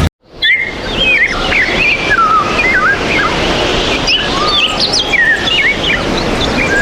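Birds chirping and singing: many quick calls that glide up and down in pitch, over a steady background hiss. They begin just after a brief moment of silence near the start.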